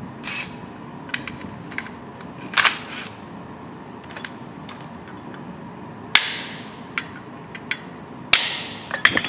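Hammer blows on a steel Red Head wedge anchor being driven into concrete through a floor guide: sharp metallic strikes a few seconds apart, each with a short ring, and two or three in quick succession near the end, with lighter taps and clinks between.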